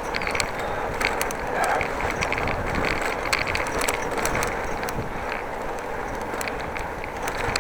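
Bicycle freewheel ticking in quick irregular clicks as the rider coasts, over steady road and wind noise.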